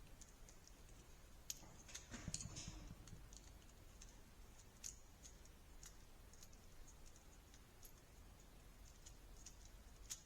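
Faint scattered clicks and light scrapes of terminal screws on an old electrical plug being loosened to free its wires, with a brief louder patch of handling noise about two seconds in.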